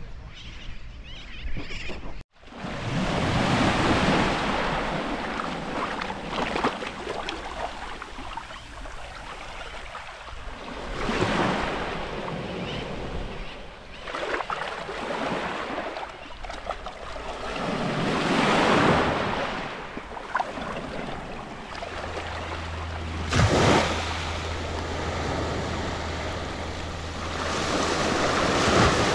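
Small waves breaking and washing up on a sand-and-shell beach, the surf swelling and fading about every seven seconds, with some wind noise on the microphone.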